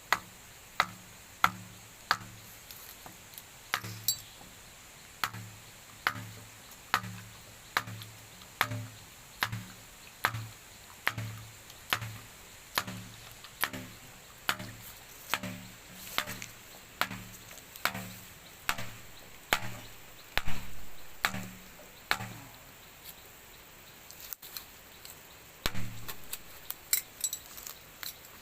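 Steady chopping blows from a hand tool, about one a second, then a pause and a few quicker, lighter strikes near the end.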